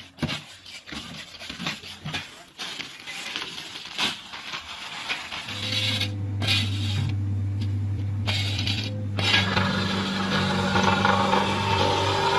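Scattered metallic clanks and scrapes, then from about halfway through a machine's engine running with a steady low hum that grows louder.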